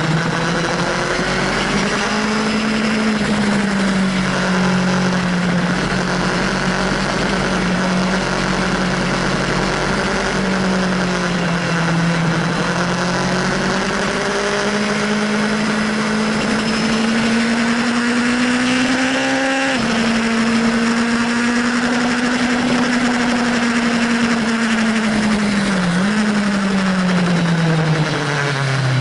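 Sport motorcycle engine heard from on board at track speed, its pitch rising and falling with the throttle through the corners, with a gearshift break about twenty seconds in and the note falling away near the end as it slows, over steady wind rush.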